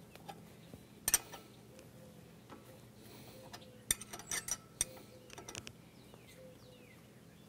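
9/16 steel wrench clinking against the hitch's adjusting bolts as they are snugged up, metal on metal. One sharp clink comes about a second in, then a quick run of clinks around four seconds.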